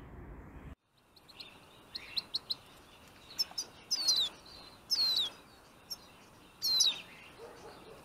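Small songbirds calling: a scatter of short chirps, then several loud, high calls that each slide downward in pitch.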